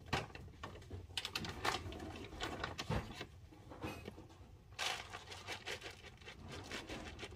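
Dry cat food rattling with irregular plastic clicks and knocks as a gravity pet feeder's kibble container is handled and lifted, with a brief louder rustle about five seconds in.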